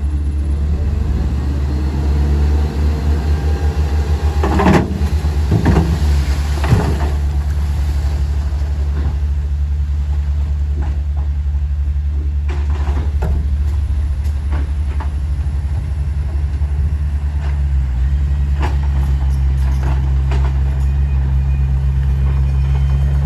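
Heavy diesel earthmoving machinery running at a steady low drone, with a few sharp metallic clanks and squeaks about five to seven seconds in and lighter clicks later.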